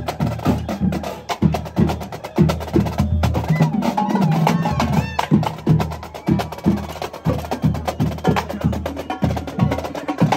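Drumline of marching snare drums and bass drum playing a fast, driving cadence of rapid strikes, with a crowd in the background.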